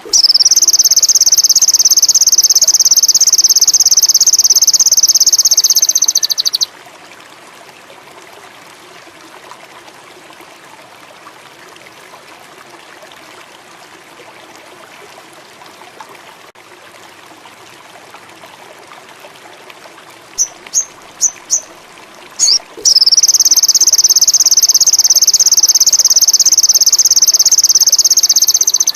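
Sogon songbird singing a long, rapid, high-pitched trill of about six seconds. It pauses, gives four quick chirps and then two more, and starts a second long trill near the end. Steady trickling water runs quietly underneath.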